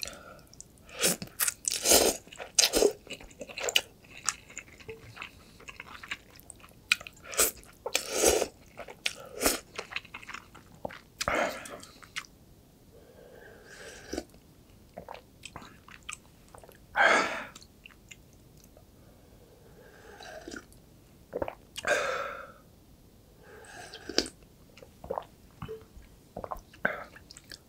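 Close-up chewing of a roll of rice and kimchi wrapped in roasted seaweed (gim), with irregular bites, crunches and mouth clicks.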